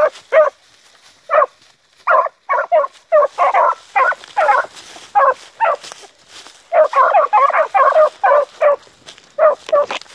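Two young beagles giving tongue on a rabbit's scent line: short, clipped hound barks in quick irregular runs, briefly pausing about one and a half seconds in and packing together, with the two voices overlapping, around seven to eight seconds in.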